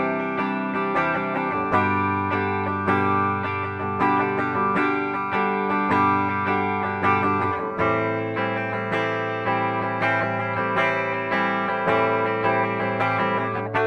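Gibson SG Standard electric guitar played with a clean tone on its bridge humbucker: picked chords ringing out, notes struck several times a second, the chord changing about every six seconds.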